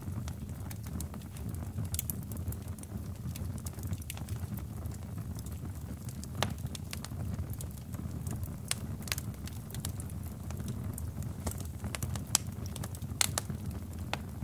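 Small flames burning on the melted plastic remains of a mini fan, crackling with scattered sharp pops over a steady low rumble; the loudest pops come near the end.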